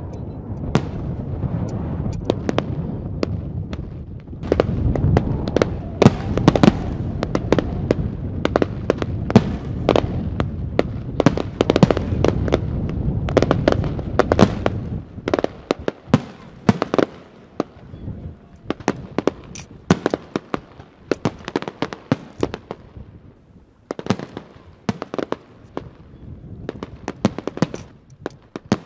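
Aerial fireworks display: many sharp bangs and crackles from bursting shells. For about the first half the reports overlap into a dense low rumble; after that they thin out to separate cracks with short lulls between them.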